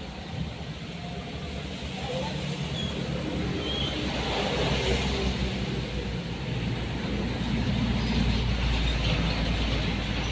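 A motor vehicle's engine running past on the road, a low rumble that swells over the second half and is loudest near the end.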